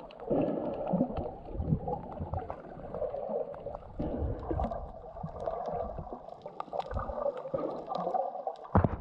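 Muffled underwater sound picked up by a camera just below the surface: water swishing and gurgling in uneven swells, with scattered small clicks.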